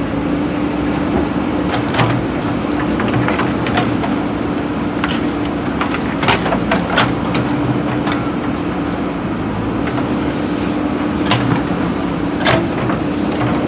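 JCB 3DX backhoe loader's diesel engine running steadily with a constant drone, overlaid by sharp clanks and knocks: a few early on, a cluster in the middle and two more near the end.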